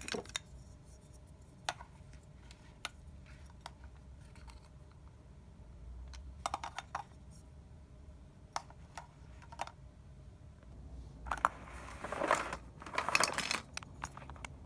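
Scattered light clicks and small knocks of a plastic toy cash register and its pieces being handled, with a busier patch of clattering near the end.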